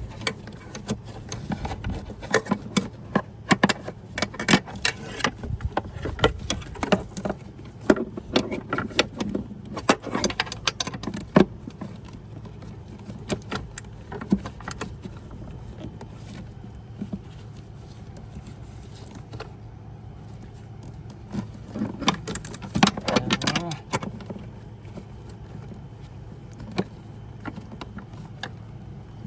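Metal hand tools clinking and clanking as a 13 mm wrench works a brake master cylinder mounting nut. The clicks come in clusters through the first twelve seconds or so and again around twenty-two seconds in, over a steady low hum.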